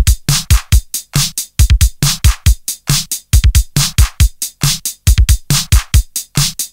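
Loud electronic music with a fast drum-machine beat: a rapid, regular run of sharp hits over deep thumps, starting abruptly.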